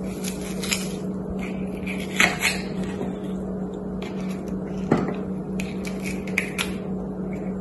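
Food-prep handling noises: light clicks and knocks as red onion layers are peeled apart and dropped into a glass bowl, and a kitchen knife is set down on a wooden cutting board, over a steady low hum.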